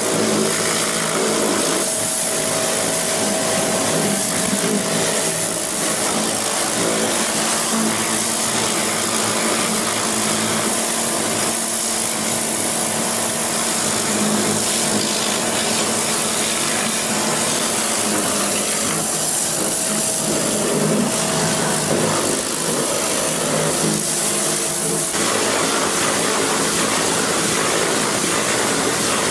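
High-pressure water spray from a pressure-washer lance blasting caked mud off an excavator's steel crawler track: a steady spray hiss over the steady hum of a running engine.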